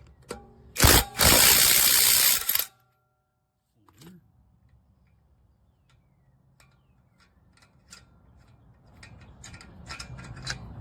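Cordless brushless 1/2-inch impact wrench hammering a wheel lug nut loose: one loud burst of under two seconds, starting about a second in and stopping suddenly. Lighter knocks and handling noise follow.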